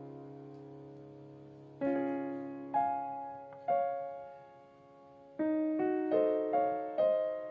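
Background piano music: a held chord fading, then chords struck one at a time, each ringing out, with a quicker run of notes near the end.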